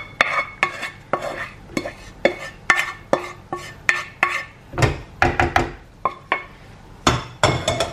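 A wooden spoon knocking and scraping chopped onions off a chopping board into a pot, giving a string of sharp, irregular taps and clacks, about two a second, with a couple of duller thumps.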